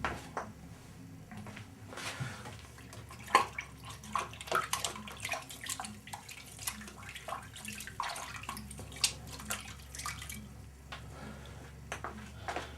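A sponge being rinsed out in water in a sink, with irregular splashing, sloshing and drips as it is squeezed and dunked, washing the PVA release agent out of it.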